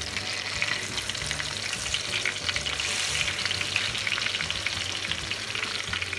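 Pomfret pieces coated in a spice paste shallow frying in hot oil, a steady dense sizzle with fine crackles and spits throughout.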